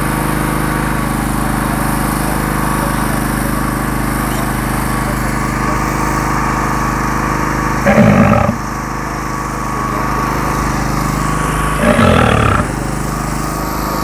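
A small engine runs steadily throughout as a constant low drone. Two short, louder sounds break over it, about eight and twelve seconds in.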